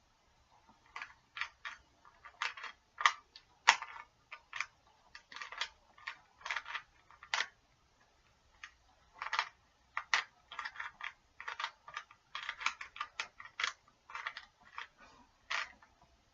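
Plastic Rubik's Cube layers being twisted by hand: quick irregular runs of clicks and clacks with brief pauses.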